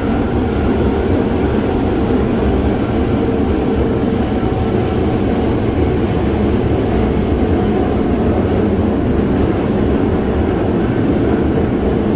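Osaka Metro 22 series subway train running steadily, heard from inside the passenger car: a continuous rumble of wheels on rails with a faint steady whine over it.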